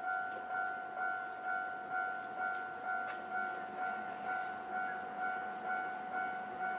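Japanese level-crossing electronic warning bell ringing, an even repeating ding at about two strikes a second, warning that a train is approaching.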